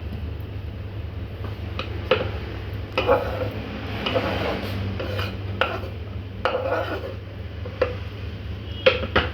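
Ginger pieces and a utensil knocking and clinking against a cooking pan as the ginger goes in with water. The knocks come irregularly, about ten over several seconds, over a steady low hum.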